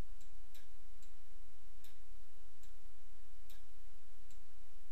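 Computer mouse clicking about five times at irregular intervals, over a steady low electrical hum.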